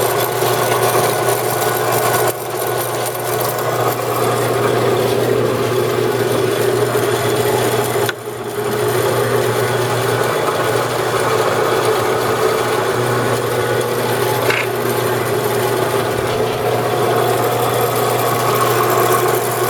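Vectrax 7" x 12" horizontal band saw's 1 hp, 115 V motor running with the blade turning: a steady low hum under a steady hiss, dipping briefly about eight seconds in.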